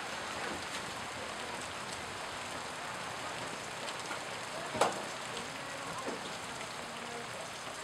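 Steady hiss of rain falling, with one sharp click a little under five seconds in.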